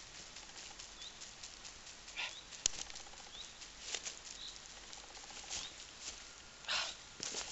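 Wet laundry whirled overhead by hand, swishing and flapping through the air in an irregular whoosh every second or so as the water is spun out of it, with one sharp snap about two and a half seconds in.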